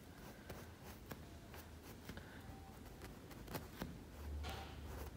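Faint scratchy brushing of a flat paintbrush on canvas, blending acrylic paint, with scattered soft ticks. A low rumble comes in about four seconds in.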